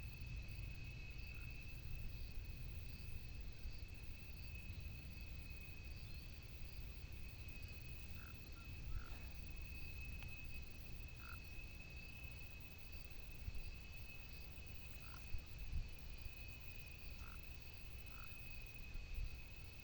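Frogs calling in short, separate croaks every second or two over a steady high-pitched drone, with a low rumble underneath.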